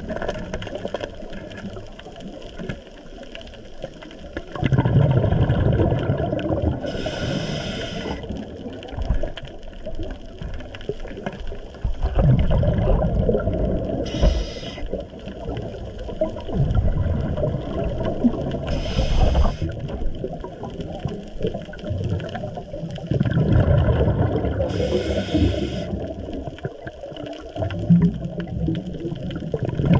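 A diver's scuba regulator breathing underwater: four short hissing inhalations, each followed by a long bubbling rumble of exhaled air.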